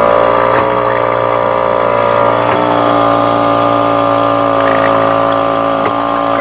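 Small Mercury outboard motor running at a steady speed under way.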